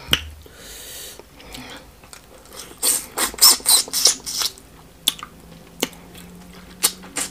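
Wet smacking and sucking mouth sounds of a person eating smoked catfish head by hand, with a dense run of them from about three to four and a half seconds in, then a few sharp single lip smacks.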